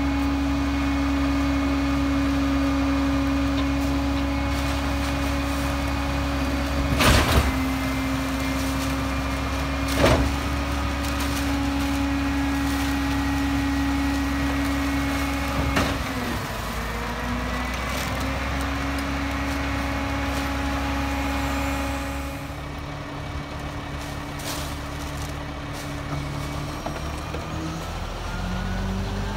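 EZ Pack Goliath rear-loader garbage truck's engine running steadily, with three sharp knocks as heavy yard-waste bags go into the hopper. Near the end the engine's pitch rises steadily.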